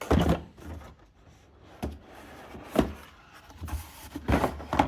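Cardboard box of a screwdriver set being opened and handled: irregular knocks, scrapes and rustles of packaging.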